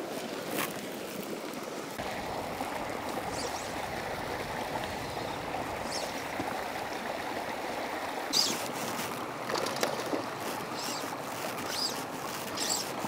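Lake water lapping gently at a rocky shoreline: a steady, soft watery wash, with a few faint short high chirps or clicks in the second half.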